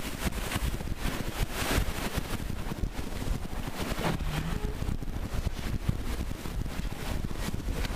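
Strong wind buffeting the microphone, with waves rushing and splashing along the hull of a sailboat heeled over and sailing fast through rough water, in uneven surges.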